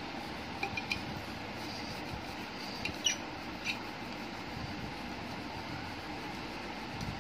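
Red crayon rubbed across drawing paper in coloring strokes over a steady background hiss. A few short, faint clicks or squeaks come about a second in and again around three seconds in.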